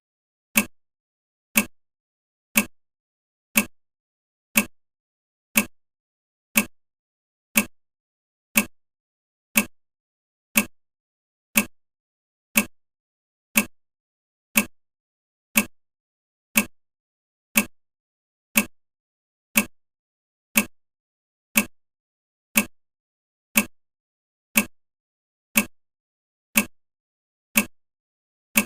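Countdown timer ticking like a clock, one short sharp tick each second, evenly and without a break.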